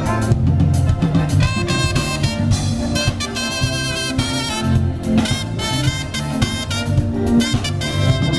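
A live band playing together: drum kit, bass guitar, electric lead guitar and keyboards, with a pitched lead line over a steady bass and drum groove.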